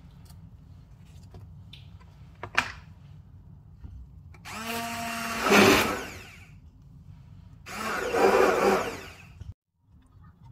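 Small electric kitchen appliance motor running in two bursts of about two seconds each, making fruit juice. A single sharp knock comes earlier, like a knife on a cutting board.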